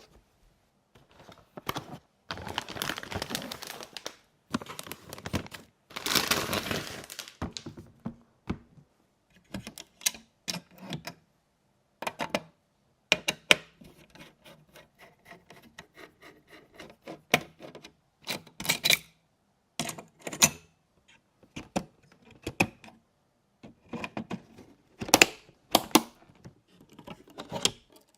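Computer hardware and its packaging being handled: rustling in the first few seconds, then a long run of sharp, irregular plastic-and-metal clicks and taps.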